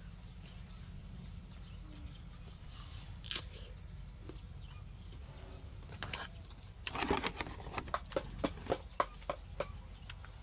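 Steady low wind rumble on the microphone with a faint high steady hum. From about seven seconds in comes a quick run of knocks, clicks and scrapes as the phone is handled and moved.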